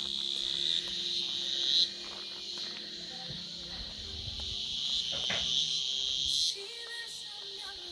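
Insects chirring in a steady high-pitched drone that swells in two long stretches, each cutting off sharply, the second about six and a half seconds in.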